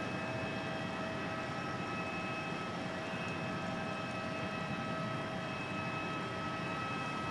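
Jet aircraft engines running steadily: an even rushing noise with a steady high whine.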